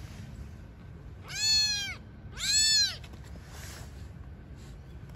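A young kitten meowing twice in quick succession: two loud, high mews, each rising and then falling in pitch.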